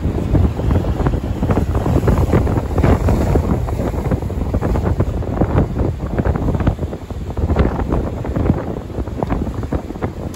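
Loud, gusty wind buffeting the microphone, over the wash of breaking surf.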